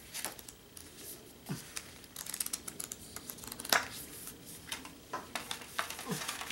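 A Blu-ray case and its paper booklet being handled: pages rustling and flipping, with light taps and clicks from the case, the sharpest a single click about three and a half seconds in.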